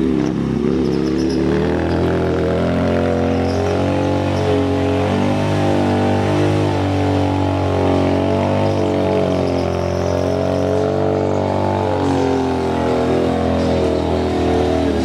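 Harley-Davidson Sportster's air-cooled V-twin engine held at high, steady revs through a long rear-tire burnout, its pitch wavering slightly as the throttle moves.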